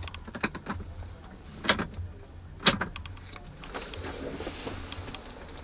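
Clicks and two sharper knocks from a truck's rotary dashboard switch being turned and handled, over a low steady hum.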